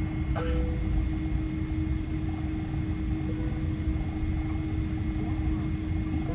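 Inside an airliner cabin: a steady rumble of the jet engines and air system at taxi power, with a constant low hum and a thin high whine, and a brief click about half a second in.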